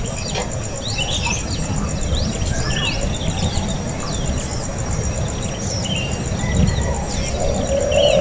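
Birds chirping: many short, quick chirps, over a steady pulsing insect trill and a constant low rumble.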